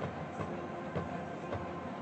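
Large indoor stadium ambience with irregular knocks and rattles of marching-band pit equipment being wheeled and set into place, over a steady hum.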